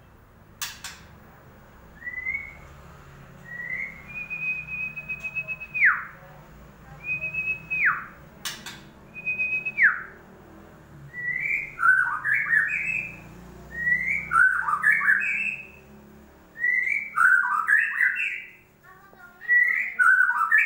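White-rumped shama song: clear whistled notes, first short rising notes and long held notes that drop sharply at the end, then rapid tumbling phrases of several notes repeated about every three seconds. Two sharp clicks come early on and about eight seconds in.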